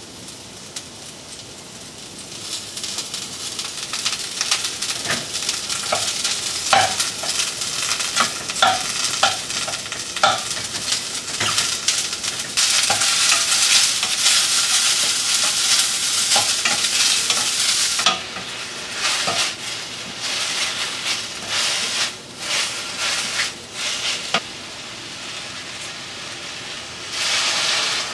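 Mushrooms sizzling as they fry in oil in a hot pan, with a wooden spatula scraping and knocking against the pan as they are stirred. Near the end comes a short, louder burst of hiss.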